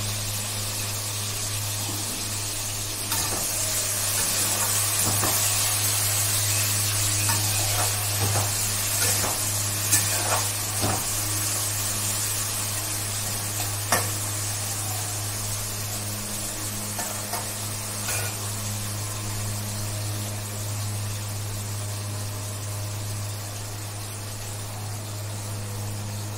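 Water running from a kitchen tap into the sink, a steady hiss, with a few knocks and clinks of things handled in the sink. A steady low hum underneath.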